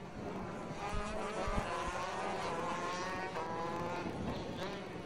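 125cc two-stroke racing kart engines running hard, their pitch climbing as they accelerate. The pitch dips briefly a little past three seconds in, then climbs again.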